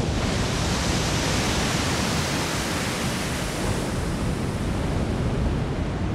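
Sea surf breaking over blocks of ice at the shoreline: a steady, dense rush of waves and spray.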